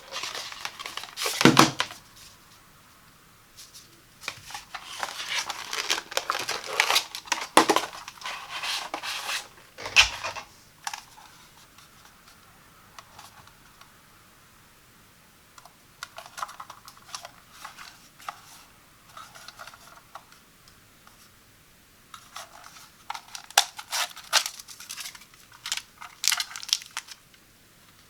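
Hands unboxing a carbon monoxide detector: packaging being torn and crinkled in bursts with pauses between. There is a knock about ten seconds in, and sharper clicks and taps near the end.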